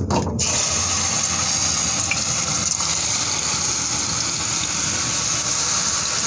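Wheat-flour-and-sugar batter pua deep-frying in hot oil in a kadhai: a steady, dense sizzle that starts suddenly about half a second in.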